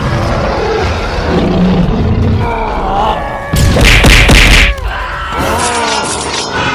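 Action sound effects: a continuous low rumble with gliding, pitched cries, and a loud crashing burst about three and a half seconds in that lasts about a second.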